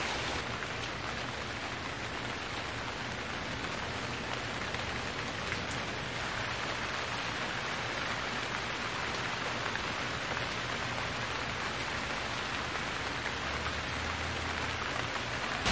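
A steady, even hiss with no distinct events, like light rain or background noise.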